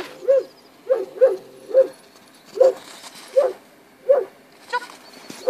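A dog barking over and over, short barks at a fairly even pace of roughly three every two seconds.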